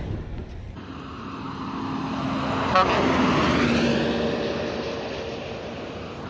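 An intercity bus passing by at speed. Its engine and road noise build to a peak about three seconds in, where there is a brief horn toot. The engine tone then drops in pitch and fades as the bus moves away.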